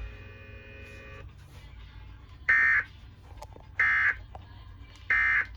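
Emergency Alert System end-of-message code: three short bursts of digital data tones, about a second and a quarter apart, signalling that the alert has ended.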